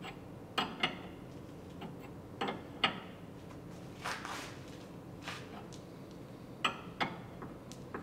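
Combination wrench clinking against the jam nut on an outer tie rod end as the nut is tightened: about eight short, sharp metallic clicks, spaced irregularly.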